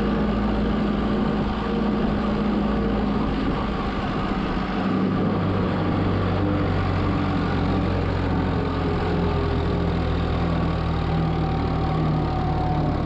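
Diesel tractor engine running steadily under work, its note changing to a deeper tone about five seconds in.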